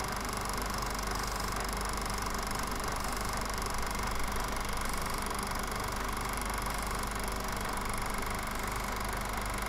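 Steady whirr and hiss of a film projector running, with a low hum underneath; no typing clicks are heard.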